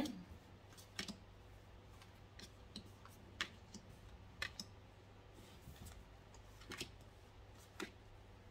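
Oracle cards being dealt one at a time onto a tabletop: about a dozen soft, irregularly spaced clicks and taps as cards are drawn from the deck and set down, over a faint steady hum.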